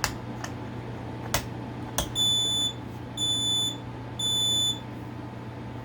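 Piezo smoke alarm sounding the temporal-three pattern: three even, high-pitched beeps about half a second each, starting about two seconds in, then a pause. A few sharp clicks come before the beeps.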